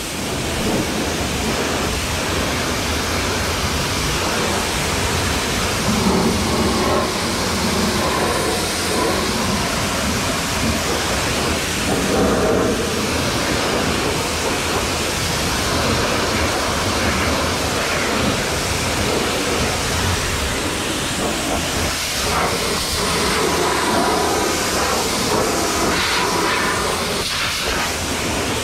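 Pressure washer wand spraying a high-pressure water jet onto a car's wheel and tyre, rinsing off foam: a loud, steady hiss that starts abruptly.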